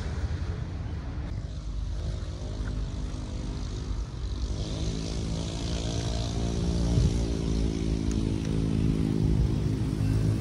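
Diesel locomotive engine running with a steady, pitched drone that grows louder about four and a half seconds in.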